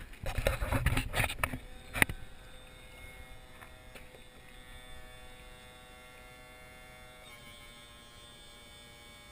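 A few seconds of bumping and rumbling end in one sharp knock, then an outboard motor's electric power-trim pump whines steadily as it tilts the motor up, its pitch shifting slightly about seven seconds in.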